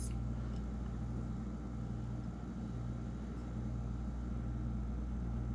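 Steady low hum of room background noise, unchanging throughout, with no other sound.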